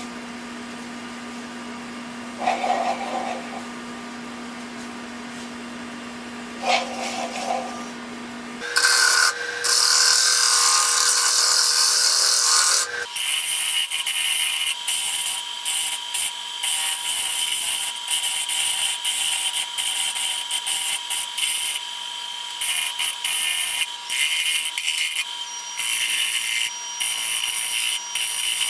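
Wood lathe spinning a large pecan bowl with a steady motor whine that steps up in pitch about nine seconds in and again about thirteen seconds in. A hand-held turning tool then cuts the bowl's face in choppy, on-and-off scraping passes, loudest just after the first step. The bowl has gone slightly out of round, so the tool bites on one side and barely touches the other.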